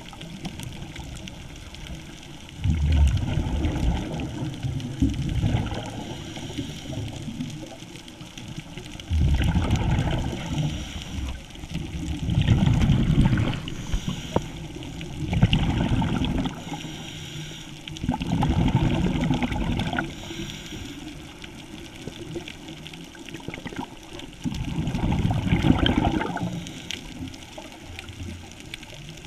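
Scuba diver breathing through a regulator underwater: a bubbling, gurgling burst of exhaled air every few seconds, about six in all, over the steady wash of water on the camera housing.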